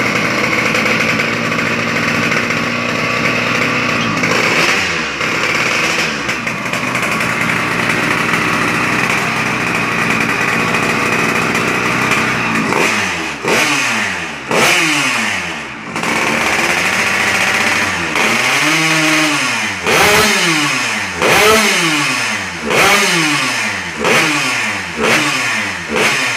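Two-stroke engine of a Yamaha SS110 (SS Two) motorcycle, fitted with a Kawasaki Ninja reed valve, running steadily at first and then revved in a series of quick throttle blips about a second apart, each climbing and falling away.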